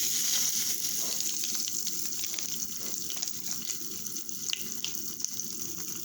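Pop Rocks candy crackling and fizzing in liquid: a steady hiss peppered with many tiny irregular pops.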